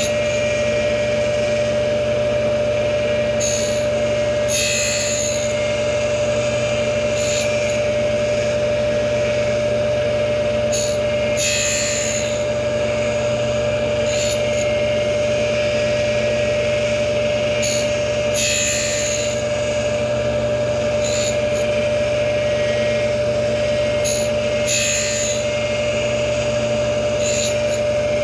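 Tool post grinder running with a steady motor whine while its wheel grinds the teeth of a horizontal milling cutter. A gritty hiss rises and falls with each pass across a tooth, in short strokes every few seconds, often two close together.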